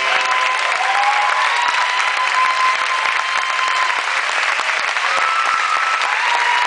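Audience applauding after a song ends, a dense steady clapping, with a few long high-pitched calls from the crowd rising above it.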